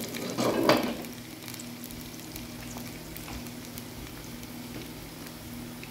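Batter-coated potato chips deep-frying in hot oil in a kadhai: a steady sizzle with small crackles. A metal spoon stirs and scrapes in the pan briefly in the first second, the loudest moment.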